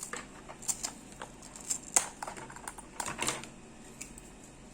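Irregular sharp clicks and taps of small hard 3D-printed plastic parts being handled, the loudest about two seconds in.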